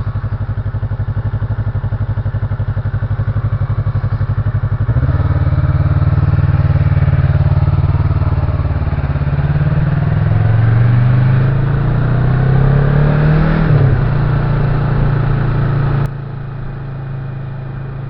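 Vehicle engine running on the road, getting louder about five seconds in, then its pitch rising and falling as it accelerates and shifts gear. The level drops suddenly a couple of seconds before the end.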